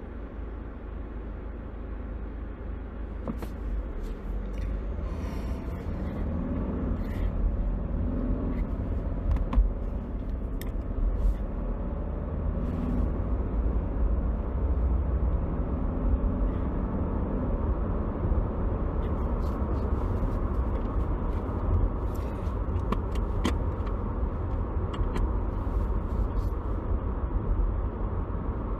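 Cabin noise of a BMW 318d diesel car on the move: a steady low rumble of engine and road, rising a little over the first few seconds, with a few light clicks and rattles.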